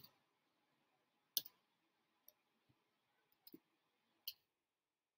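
Faint, sparse keyboard key clicks as a password is typed slowly, about five separate presses a second or so apart, then quiet for the last second.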